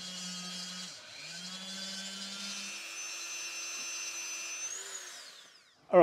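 Dremel rotary tool running at slow speed, its small bit grinding welded plastic into a beveled lip. The motor dips briefly about a second in, then winds down and stops near the end.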